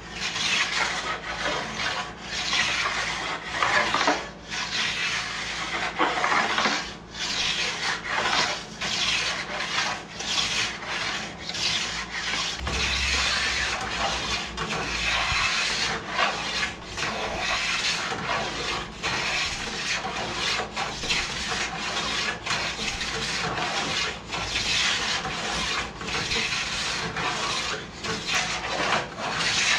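Razor-sharp hand plane shaving a red oak board, stroke after stroke, each a rough scraping hiss with a short break between, about one a second.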